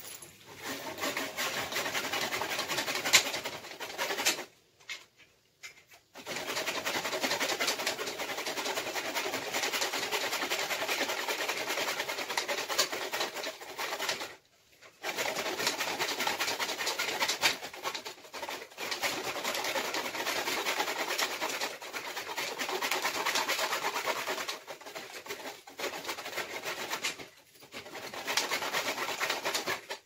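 Tenon saw cutting through a thick fallen branch, a steady back-and-forth rasping that stops briefly a few times.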